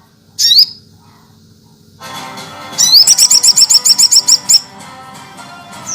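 Sunbird (sogok ontong) song: a brief rising high note, then from about three seconds in a rising note followed by a fast run of high repeated notes, about eight a second, for nearly two seconds. It sounds over a steady layered background.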